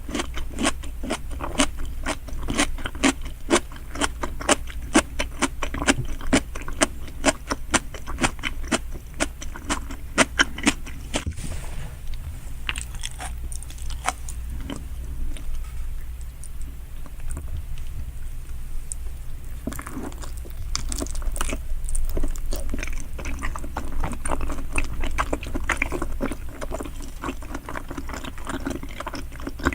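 Close-miked chewing of giant salmon sushi: rapid, wet mouth clicks and smacks, thinning out around the middle and picking up again in the last third.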